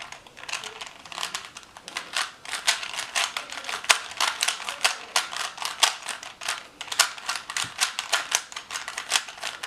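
A 3x3 Rubik's cube being turned by hand in quick succession: rapid, irregular plastic clicking and clacking as its layers are rotated, in the last seconds of a solve.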